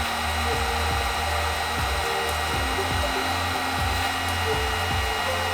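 A small electric cooling fan running steadily, an even whir with a low hum and a faint thin high whine.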